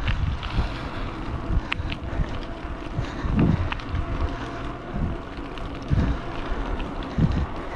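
Wind buffeting a handlebar-mounted camera's microphone as a bicycle rolls downhill on a concrete path, with gusts swelling every second or so, and tyre noise and a few light clicks underneath.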